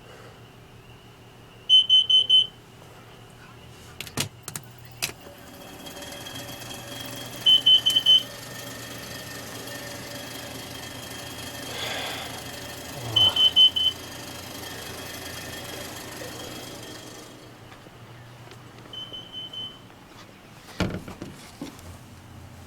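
Kidde carbon monoxide alarm sounding its warning: groups of four shrill beeps repeating about every six seconds, four groups in all, the last one fainter. The alarm is set off by exhaust fumes, which the owner puts down to a bad exhaust leak at the front of the motorhome's engine.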